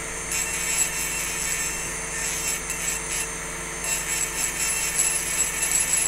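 Rotary engraving tool running steadily, its fine burr grinding lightly over wet crystal glass. The high grinding hiss breaks off briefly twice, near the start and about halfway through, as the burr lifts off the glass.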